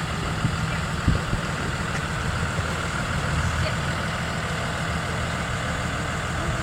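Blue Bird Vision school bus diesel engine running steadily with a low rumble, with a short knock about a second in.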